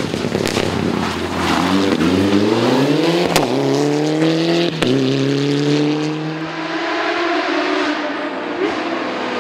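Rally car engine accelerating hard, its pitch climbing steeply, with two sharp cracks about a second and a half apart. The engine then holds its pitch and eases off, falling in pitch.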